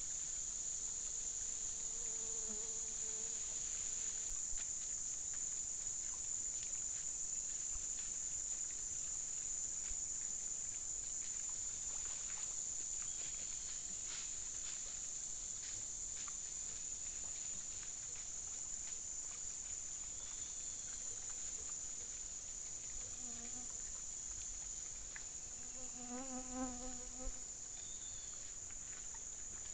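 Insects buzzing in a steady, high, unbroken drone. A short, low, wavering call sounds about two seconds in and again near the end.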